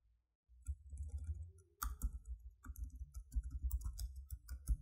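Computer keyboard keys clicking in irregular runs as a line of code is typed.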